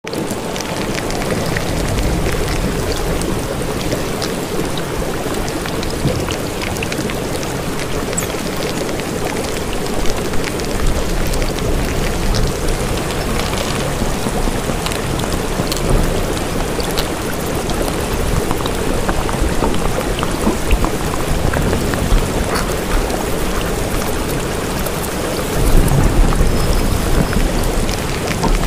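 Rain and thunderstorm ambience: steady rain hiss, with a low rumble of thunder swelling near the end.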